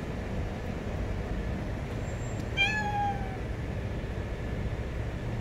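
A stray cat meows once, a short call falling slightly in pitch about two and a half seconds in, over a steady low background rumble.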